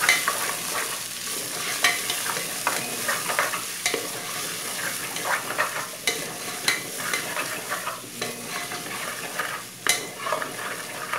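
Diced potato, chayote and carrot sautéing in hot olive oil in a pressure-cooker pot, with a steady sizzle. A wooden spoon stirs them, making irregular scrapes and knocks against the pot.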